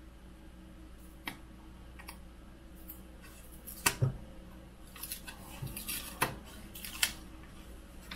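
Scattered sharp clicks and crackles from a flexible magnetic bed sheet and its adhesive paper backing being handled and flexed by hand, the loudest about four and seven seconds in.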